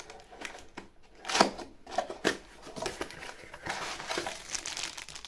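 Small cardboard box being opened by hand: irregular scraping and crinkling of the cardboard flaps and packaging, loudest about a second and a half in.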